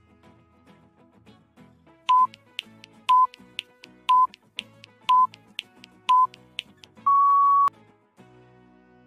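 Quiz countdown timer sound effect over soft background music: five short electronic beeps one second apart with a tick between each, then one longer, slightly higher beep signalling that time is up.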